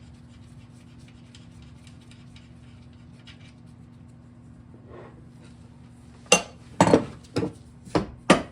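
Light clicking and rubbing of tools on metal bike parts, then about six sharp metallic knocks in the last two seconds as a part is driven through.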